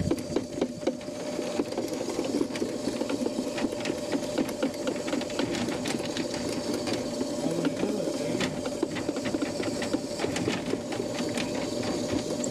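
Ridgid K9-204 FlexShaft drain cleaning machine running, its drill-spun cable turning inside a clogged kitchen sink drain pipe: a steady motor whine with a constant rapid rattle and knocking of the cable against the pipe.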